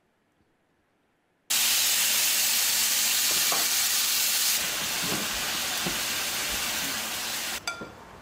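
Meat frying in a pan, a loud steady sizzle that starts suddenly after a second and a half of near silence, with a few faint scrapes of stirring. It cuts off near the end with a couple of clicks.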